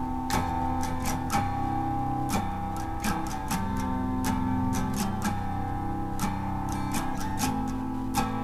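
Music: an acoustic guitar intro of picked notes over changing chords, with no singing yet.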